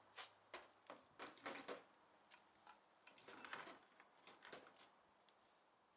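Faint, scattered clicks and taps at irregular intervals, with no engine running.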